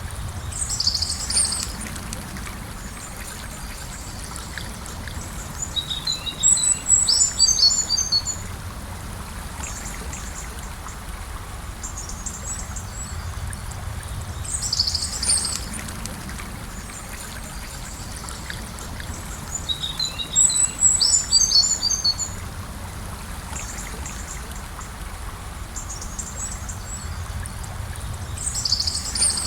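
Gentle river flowing in a steady rush. Over it a songbird sings five bursts of high, quick notes several seconds apart, alternating a short phrase with a longer tumbling one; these are the loudest sounds.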